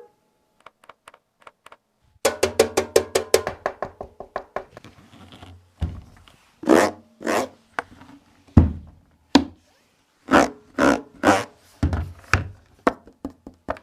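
Music with a beat and pitched notes played back through a Boat PartyPal 63 Pro party speaker in Bluetooth mode, starting about two seconds in after a few faint clicks.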